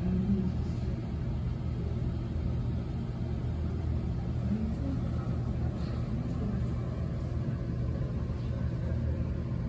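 Steady low hum and rumble of background ambience, with faint indistinct voices a few times.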